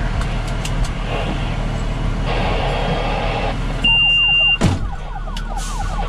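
Fire engine idling in the station bay with a steady low rumble. A single high, steady beep sounds for just under a second about four seconds in, and a sharp burst follows right after it.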